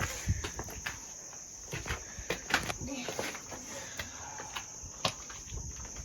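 Insects keep up a steady high-pitched drone, over scattered, irregular scuffs and knocks of footsteps on rock.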